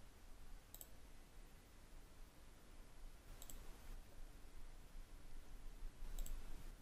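Three faint computer mouse clicks, each a quick press-and-release double tick, spaced two to three seconds apart over a low steady hum.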